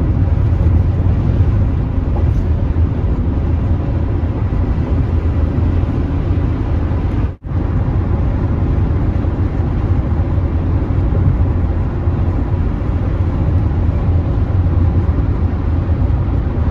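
A loud, steady low rumble with no speech, cut off briefly about seven seconds in before it resumes.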